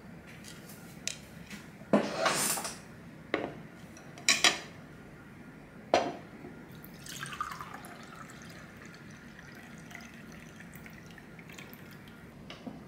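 A glass tumbler and tableware set down on a table: several sharp knocks and clinks over the first six seconds. Then a dark drink is poured from a bottle into the glass, running for a few seconds from about seven seconds in and tailing off.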